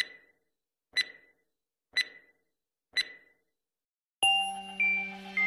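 Countdown-timer sound effect: four short electronic beeps, one a second. About four seconds in, an electronic intro sting starts abruptly with held tones.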